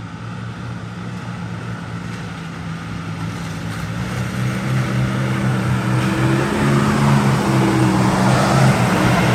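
Off-road 4x4 engine running hard at full throttle in low-range four-wheel drive, climbing a muddy slope. It grows steadily louder as the vehicle comes closer, and its note rises slightly about four seconds in.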